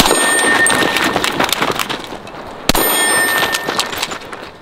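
Two pistol shots from a Sig Sauer P320 X5 Legion 9mm, about two and a half seconds apart. Each is followed by a long echo with a faint metallic ring.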